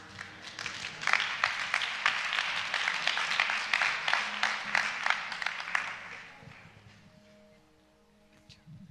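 Audience applause, many hands clapping, that dies away about six seconds in, leaving faint steady musical tones.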